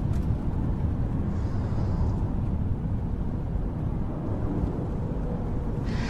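Steady low rumble of a moving car, heard from inside the cabin.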